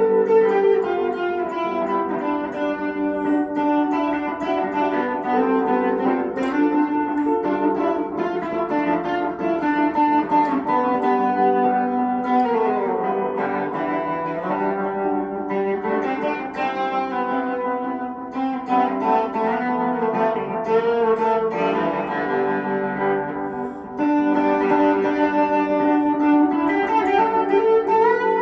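Small box-bodied electric guitar plucked through effects units, playing a melody of ringing, sustained notes with a few sliding pitch glides around the middle. The playing dips briefly a few seconds before the end, then carries on.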